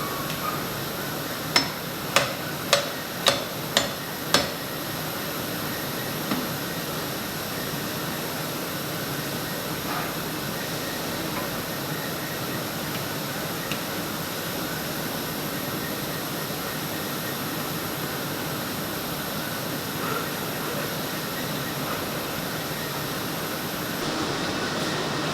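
Factory machinery running with a steady hum and a high whine. Six sharp clicks, about half a second apart, come in quick succession a couple of seconds in.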